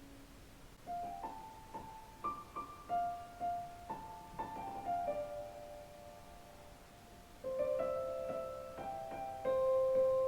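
Jazz piano playing a slow line of single notes that starts about a second in, with fuller held chords from about two-thirds of the way through, played back over floorstanding hi-fi loudspeakers.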